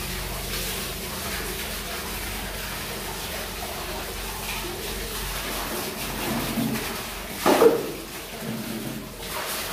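Water from a hose running and sloshing in a wooden boat's bilge as it is washed out. About three-quarters of the way through comes a brief loud splash as a bucket of water is tipped out.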